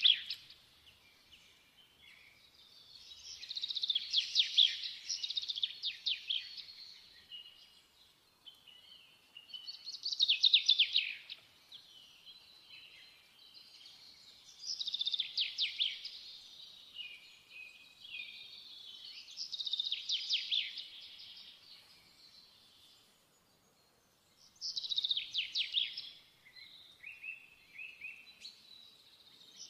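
Birdsong: a songbird sings phrases of rapid chirps and trills, about six in all, one every four to five seconds with short quiet gaps between.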